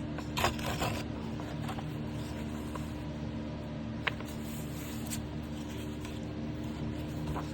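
Paper being handled: short rustles and scrapes in the first second, a sharp tap about four seconds in and another rustle a second later, over a steady low hum.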